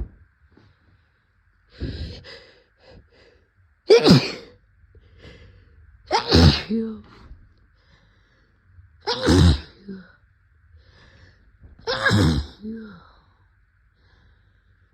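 A person's wet, raspy sneezing fit from a head cold after sniffing chhinkni sneezing powder. A smaller sneeze comes near the start, then four loud sneezes about every two to three seconds, with short breaths between them.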